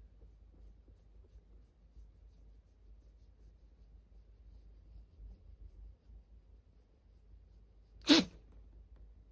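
A single short, sharp sneeze about eight seconds in, against a faint steady room hum.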